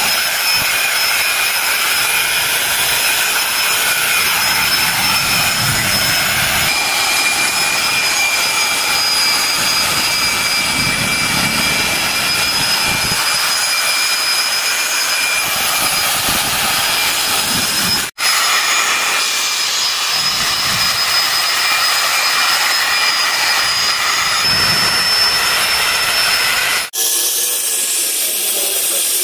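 Electric rotary polisher running steadily with a high-pitched motor whine as its foam buffing pad works a painted steel door panel. The sound breaks off for an instant twice, near the two-thirds mark and near the end.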